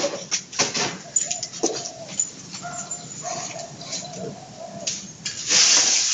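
A cat growling in low wavering calls, broken by sharp hissing bursts; the longest and loudest hiss comes near the end.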